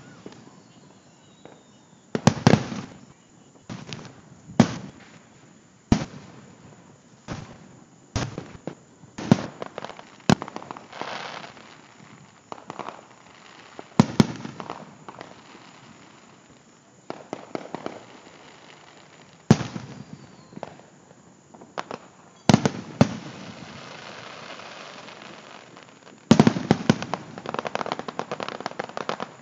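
Aerial fireworks shells bursting: sharp bangs every few seconds, several trailing off into crackling, with a close run of bursts near the end.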